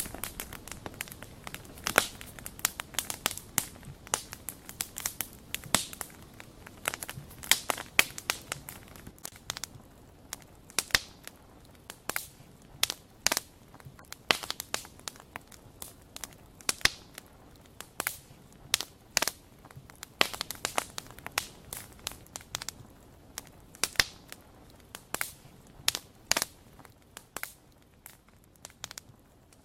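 Wood fire crackling: irregular sharp pops and snaps over a faint hiss, a few pops louder than the rest.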